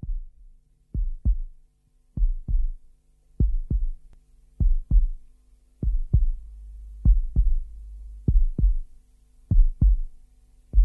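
Slow heartbeat-like double thumps, a low pair about every 1.2 seconds, opening a rock song, with a faint low drone beneath them.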